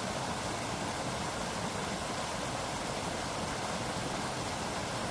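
Small forest creek rushing steadily over rocks.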